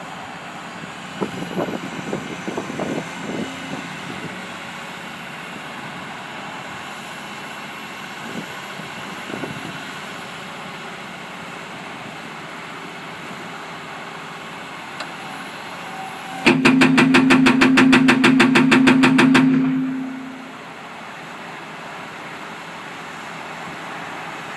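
Volvo EW180 wheeled excavator's diesel engine running steadily, with a few clanks in the first few seconds. About sixteen seconds in, the NPK GH9 hydraulic hammer fires for about three seconds, a rapid, loud run of blows at roughly ten a second.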